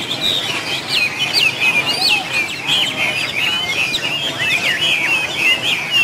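Many caged songbirds chirping and singing at once: a dense chorus of quick, high calls overlapping without a break.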